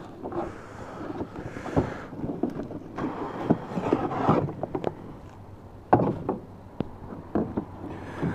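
Cardboard boxes being handled and opened: irregular rustling and scraping of cardboard with light knocks, and a sharper knock about six seconds in.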